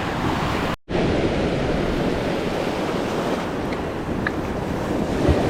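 Ocean surf washing onto the beach, a steady rushing noise, with wind buffeting the microphone. All sound cuts out for an instant just under a second in.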